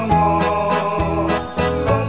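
Background music: an upbeat tune of pitched notes over a steady beat.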